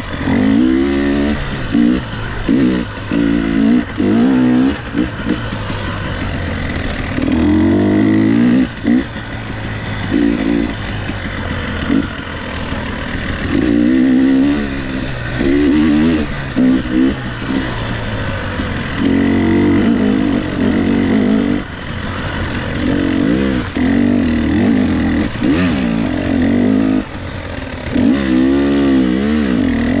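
Two-stroke dirt bike engine ridden hard on a trail, its pitch climbing and falling over and over with each burst of throttle, with short drops as the throttle is chopped between surges.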